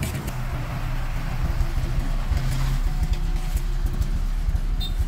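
Heavy diesel engine running close by with a steady low rumble.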